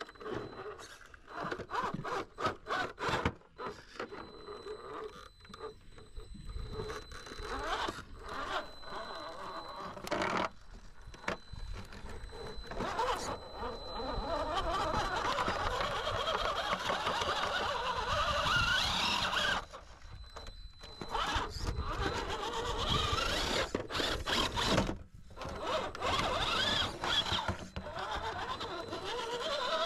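Radio-controlled rock crawler climbing concrete rubble: its electric motor and gears whine, rising and falling with the throttle, while the tyres scrape and knock on the rock. Clattering knocks come through most of the first ten seconds, and a longer stretch of steady whining and scraping runs from about halfway in.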